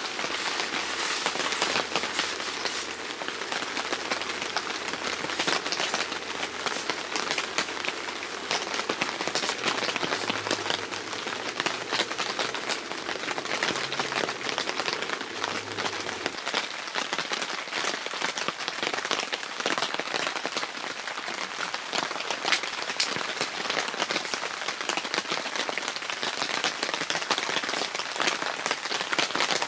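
Steady rain falling on the fabric of a tent shelter, a dense hiss of countless small drop ticks.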